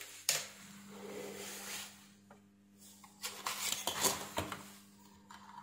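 Handling noise on a workbench: a sharp click about a third of a second in, then cloth rustling and light knocks over a faint steady hum.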